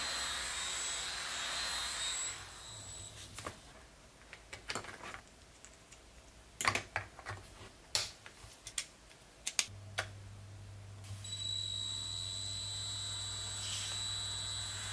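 Small Circuit Cubes DC motor spinning a plastic LEGO propeller with a steady high whir, which stops after about two seconds. Scattered sharp clicks of plastic bricks being handled follow. About ten seconds in the motor starts again and whirs steadily with a low hum under it.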